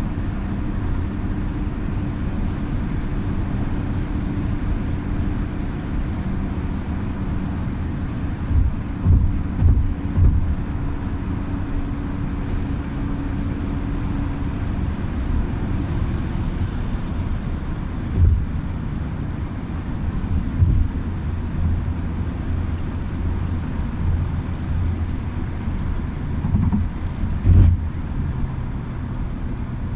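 A road vehicle driving: steady low engine and road rumble, with a few short low thumps from bumps.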